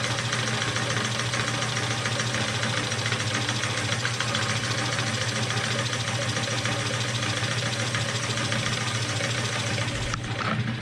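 Electric motor of a homemade meat grinder running steadily under power, turning the grinder through a belt and a 12-inch pulley, with a strong steady hum. The builder feels it is spinning too fast.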